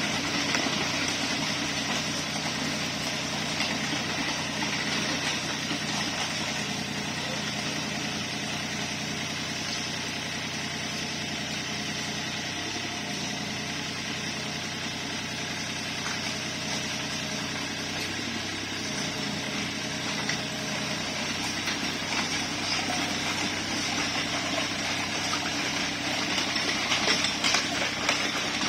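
Mini excavator's diesel engine running steadily, its pitch dipping briefly twice about halfway through, over the even hiss of rain.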